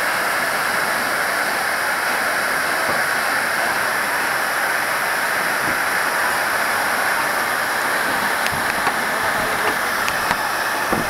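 Fire hose nozzle spraying water: a steady rushing hiss, with a few faint ticks near the end.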